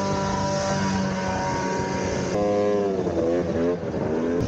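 Snowmobile engine running at steady revs. After a sudden cut about two seconds in, another snowmobile engine's pitch drops and then wavers up and down as the throttle is blipped.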